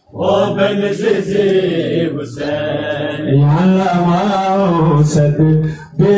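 Male chanting of a Muharram lament (nauha), a melodic, held recitation. The sound drops out sharply right at the start and again just before the end.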